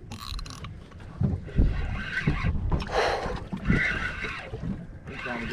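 Wind buffeting the microphone and water slapping against a small boat's hull, heard as irregular low thumps and rumble, with a few short rushing noises partway through.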